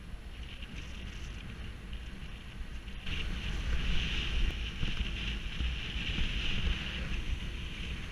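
Wind buffeting the microphone of a camera riding on a moving bicycle, a steady low rumble with a hiss of tyres on the road. The hiss steps up abruptly about three seconds in.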